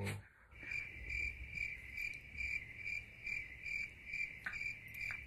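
Cricket chirping, an even run of about three short, high chirps a second.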